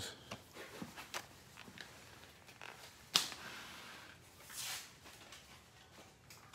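Faint handling noises: scattered small clicks and a brief plastic-like scrape, with one sharp click about three seconds in.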